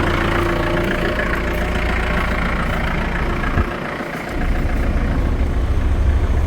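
Vehicle engine running, heard from inside the cabin as a steady low rumble that dips briefly about four seconds in.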